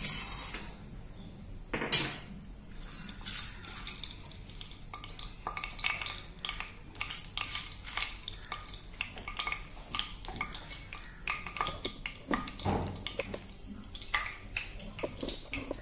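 Wooden spatula stirring and scraping cloves around in oil in a nonstick wok, with small irregular clicks and scrapes of kitchenware. A single sharp knock about two seconds in is the loudest sound.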